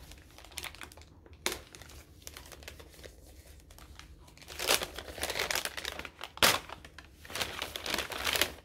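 Gift wrapping crinkling and tearing in irregular rustling bursts as a small wrapped package is unwrapped by hand, loudest about halfway through.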